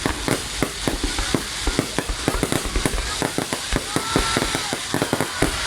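Fireworks going off: a rapid, irregular run of sharp cracks and bangs.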